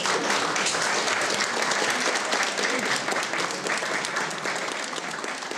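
Audience applauding, a dense run of steady clapping that fades a little toward the end.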